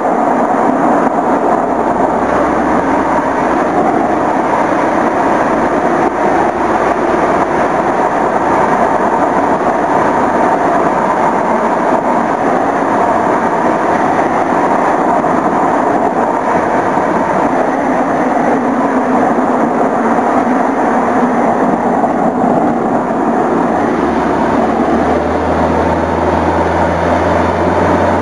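Steady, loud rush of wind and road noise buffeting the microphone of a camera mounted on the front of a moving car, with a low hum coming in near the end.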